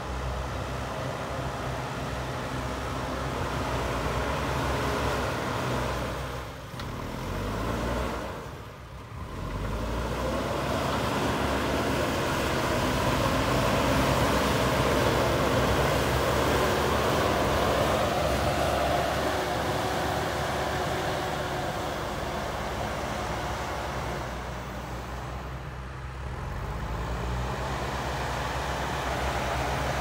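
Diesel engine of a JCB 3DX backhoe loader running under load as it pushes soil, its note rising and falling with engine speed and dropping briefly a few times.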